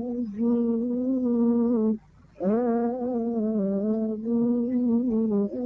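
A single voice humming a slow hymn melody without words, in long held notes that waver in pitch, breaking off for a breath about two seconds in.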